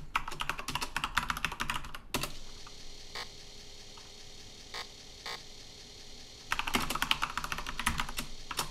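Rapid typing on a computer keyboard: a quick burst of keystrokes lasting about two seconds, a few single key presses over a faint steady hum, then a second burst of typing near the end.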